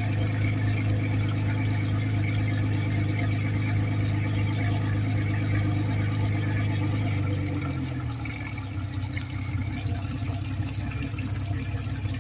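Suzuki 250 four-stroke V6 outboard running steadily with a smooth, even hum after a head gasket rebuild. About seven and a half seconds in, its sound changes, becoming rougher and a little quieter.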